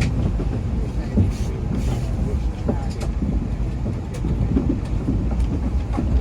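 Inside a moving Amtrak passenger car: a steady low rumble of the train rolling on the track, with scattered clicks and knocks from the wheels and the car body.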